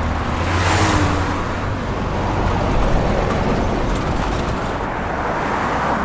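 Highway traffic, cars and trucks passing by: a steady roar of tyres and engines with a deep rumble underneath, and one vehicle sweeping past close about a second in.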